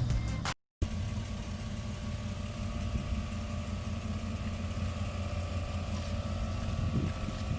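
An engine running steadily and evenly, starting just after a brief cut-out about half a second in.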